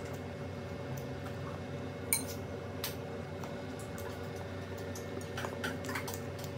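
Metal fork and spoon clinking against a glass bowl of noodle soup: scattered light clicks, a sharp ringing clink about two seconds in, and a few quick clinks near the end.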